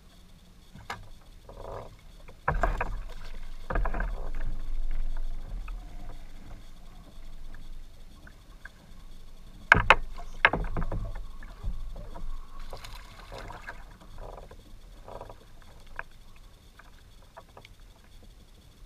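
Knocks and clunks on a plastic fishing kayak and water sloshing at the hull while an angler fights and lands a bass, with scattered sharp clicks, two loudest ones just under ten seconds in.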